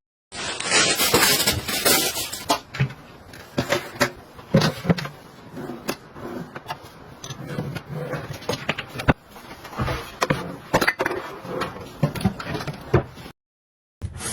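Household objects being handled: a dense rustling or hissing burst near the start, then irregular knocks, taps and clicks, cutting off abruptly near the end.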